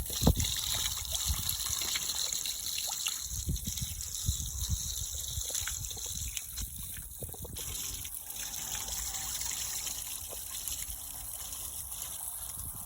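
Steady hiss of running or splashing water.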